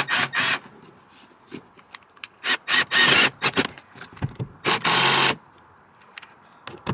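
Cordless drill/driver driving a Phillips self-tapping screw through a plywood framing strip into the van's metal roof frame, the motor running in a series of short bursts with the last one the longest.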